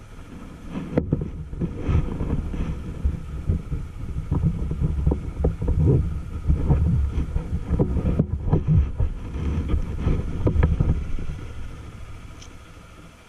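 Low, uneven rumble of wind buffeting the camera's microphone, with irregular thumps, fading away near the end.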